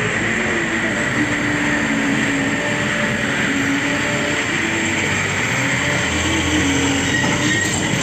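Hino 500 fuel tanker truck driving past in traffic: steady engine and tyre noise with a high, held squeal-like tone over it.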